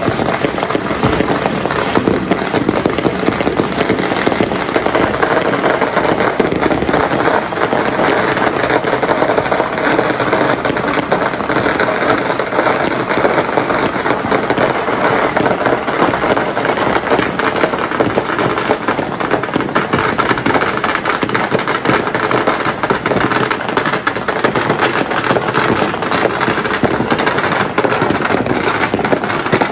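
Firecrackers and fireworks going off in a dense, continuous barrage of crackling pops, with no let-up.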